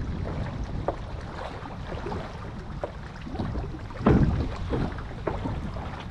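Lake water sloshing and splashing around a kayak hull as a person wades beside it, with wind buffeting the microphone. There are many small splashes and one louder thump about four seconds in.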